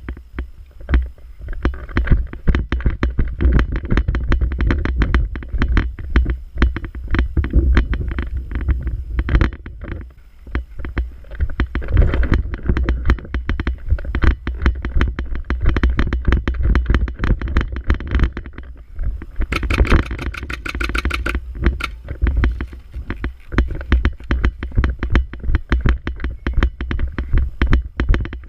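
Handling and movement noise on a body-worn action camera: a steady low rumble with rapid, irregular clicks and rattles throughout, and a denser, brighter rattle lasting about two seconds about two-thirds of the way in.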